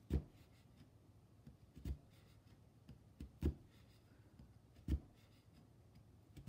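Oxford punch needle stitching wool yarn through monk's cloth stretched on a frame: a soft, low thud each time the needle is pushed all the way down, about one every second and a half.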